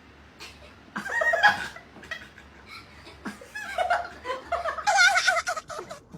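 People laughing in bouts, loudest about a second in and again from about four to six seconds in.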